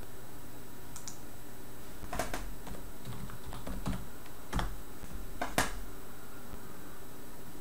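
A few scattered clicks of computer keys, the last and loudest a little over halfway through, over a steady low hum.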